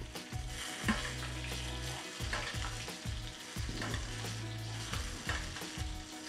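Butter sizzling and frying in a steel pan around a filet mignon being basted, a steady hiss, with a metal spoon scraping and clinking against the pan a few times as it scoops the hot butter over the steak.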